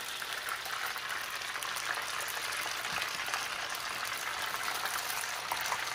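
Tempura-battered grouper fingers deep-frying in a pot of hot oil: a steady sizzle with dense fine crackling.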